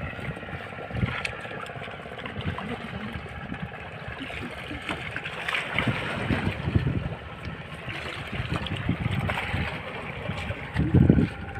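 Fishing boat at sea: a motor running steadily under water splashing against the hull, with irregular low thumps, the loudest one near the end.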